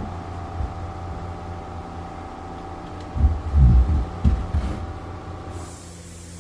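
A machine motor running with a steady whine that cuts off about five and a half seconds in, leaving a low hum. A few heavy low thumps come a little past the middle.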